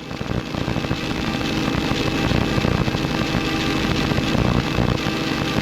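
Helicopter in flight, heard from on board: steady engine whine and hum over the fast, even chop of the rotor blades, growing slightly louder over the first couple of seconds.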